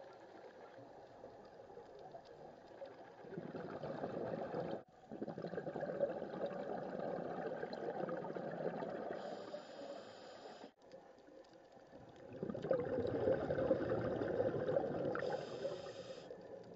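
Scuba diver's exhaled air bubbling from the regulator, heard underwater: the bubbling swells in three stretches of a few seconds each, with a brief higher hiss twice. The sound drops out sharply twice for a moment.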